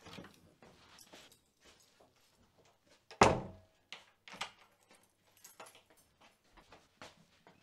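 An apartment front door swinging shut with one solid thud about three seconds in, followed by a few lighter knocks and soft footsteps along a hallway.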